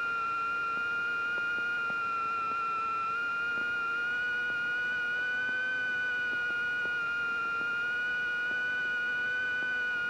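Steady high-pitched whine in a small airplane's cockpit intercom audio, with a lower hum beneath it, its pitch drifting slightly up and down.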